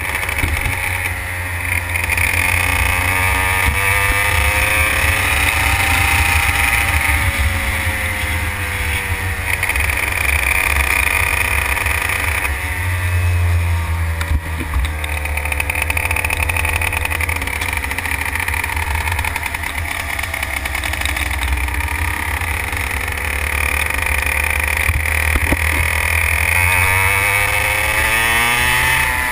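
Racing kart engine heard onboard at speed, its pitch rising along the straights and falling back into the corners several times over.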